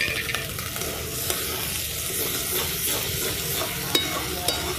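Green peas and spice paste frying in a metal kadai, stirred with a long-handled metal spatula: a steady sizzle with a few light scrapes and clicks of the spatula against the pan.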